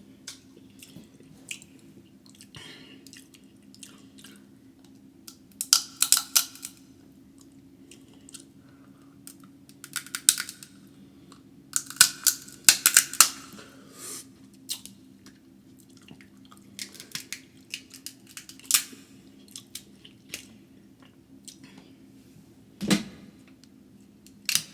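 Close-miked eating of a king crab and snow crab seafood boil: chewing and smacking, with clusters of sharp crackles and clicks from shell and food being bitten and broken. A steady low hum runs underneath.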